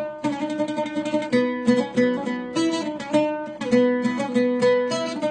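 Instrumental interlude of a plucked string instrument picking a quick run of melody notes, in a pause between the sung lines of a Syrian mawlayya folk song.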